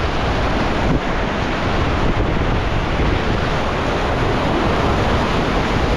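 Fast whitewater rushing through a river rapid, a steady loud wash of moving water, with wind buffeting the microphone.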